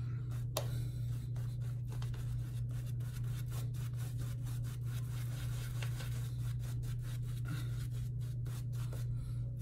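Semogue 2000 boar-bristle shaving brush scrubbing lather over a stubbled face: a scratchy rubbing made of many small rasps. A steady low hum runs underneath.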